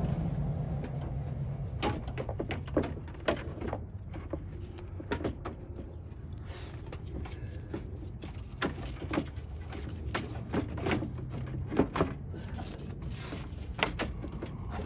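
Irregular clicks and knocks of plastic and metal as a radiator and cooling-fan assembly is worked down into a 2004 Honda Civic's engine bay, over a low steady rumble that is louder in the first second or two.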